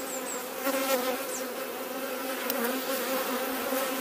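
Honeybees buzzing on and around a frame of comb lifted from an open hive: a steady, many-voiced hum.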